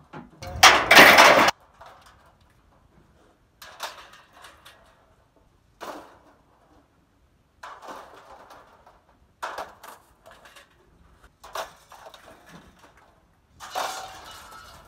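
Scrap being thrown by hand onto a scrap-yard pile: a loud crash lasting about a second just after the start, then a string of separate clattering bangs of metal and plastic pieces landing, one every second or two.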